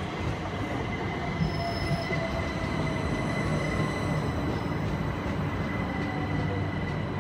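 Southern Class 377 Electrostar electric multiple unit rolling past close alongside the platform: a steady rumble of wheels on rails with a low electric hum and a thin, high, steady squeal from the wheels.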